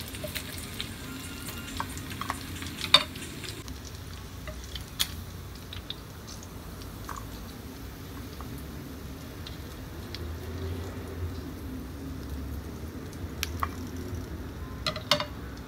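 Faint sizzling of frying lamb chops, dying away over the first few seconds, with a few short sharp clicks scattered through.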